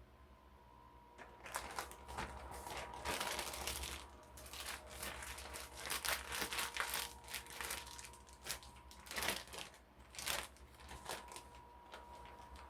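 Irregular crinkling and rustling of something being handled by hand, starting about a second in and going on in uneven bursts, over a faint steady hum.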